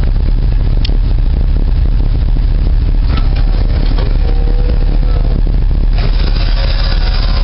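Car engine running steadily with a deep, even rumble.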